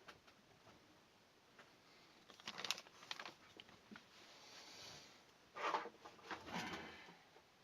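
Small objects being handled and shifted about on a work surface: rustling and light clattering in two short bouts, about two and a half and five and a half seconds in.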